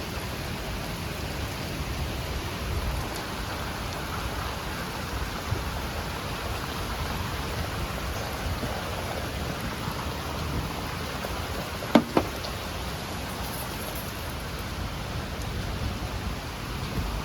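Heavy rain falling steadily, with one short sharp knock about twelve seconds in.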